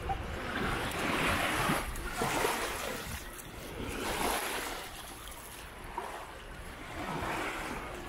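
Sea waves breaking and washing up a sandy beach, the surf swelling and fading about every three seconds.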